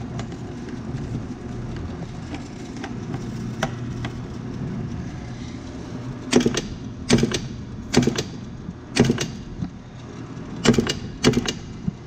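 Molex bench crimper running empty, its electric motor humming steadily. From about six seconds in, the foot pedal trips the ram through several crimping strokes, each a sharp clack, roughly one a second. The strokes show the crimping head actuates as it should.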